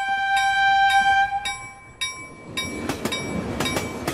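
Railroad crossing bell ringing with evenly spaced strikes while a train horn sounds one blast lasting nearly two seconds, followed by the rumble and clatter of a passing train.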